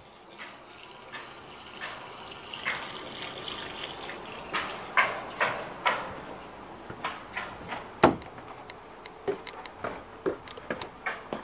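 Water running from a hose into a drain pipe, a steady rush, then footsteps and knocks as someone walks. One sharp knock about eight seconds in is the loudest.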